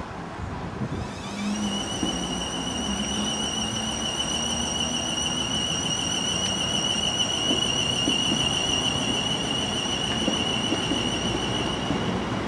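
South West Trains Siemens Desiro electric multiple unit pulling out. Its traction equipment gives a high-pitched whine that glides up briefly about a second in and then holds steady, over the rumble of the moving train.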